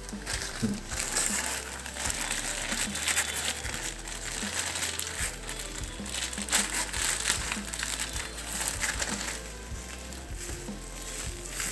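Crinkling, crackly handling noise over background music with a steady beat and a stepping bass line.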